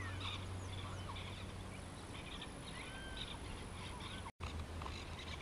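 Faint birds chirping and whistling: scattered short rising and falling whistles over a steady low background rumble, broken by a brief drop to silence about four seconds in.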